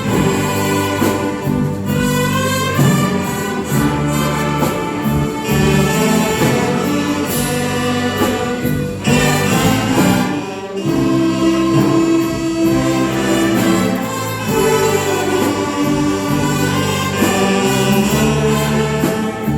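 Live orchestra playing a gospel piece: sustained chords shifting every second or two, with a melody over them and a short break a little past halfway.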